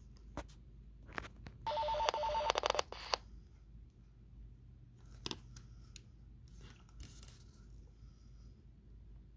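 Walkie-talkie speaker opening briefly on an incoming transmission, about two seconds in: a second and a half of static carrying two steady electronic tones, then the squelch shuts. Faint scattered clicks before and after.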